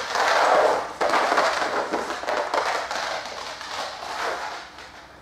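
A dog's claws scrabbling and clicking rapidly on a hard floor as it sprints out on a retrieve and back, loudest in the first second and fading near the end.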